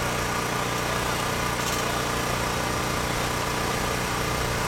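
A steady engine-like mechanical hum, with a faint click about two seconds in.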